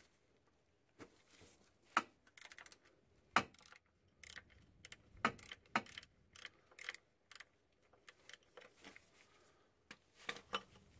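Ratchet with a deep socket working a bracket bolt loose under a car: faint, irregular clicks of the ratchet and metal clinks of the socket, some in quick runs, with short quiet gaps between.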